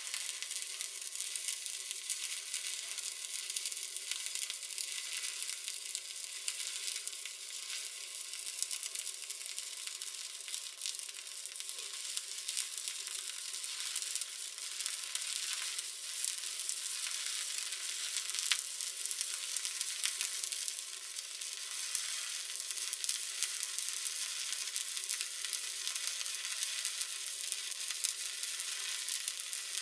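Stick (SMAW) welding arc burning an electrode along a weld: a steady hissing crackle with small irregular pops.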